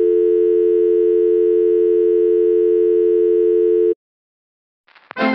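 Steady electronic tone made of two pitches together, like a telephone dial tone, played as a 'please stand by' sound effect. It cuts off suddenly about four seconds in, and after a moment of silence music starts near the end.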